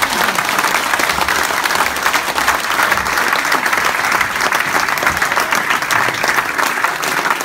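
A large crowd applauding: dense, steady clapping with some cheering mixed in.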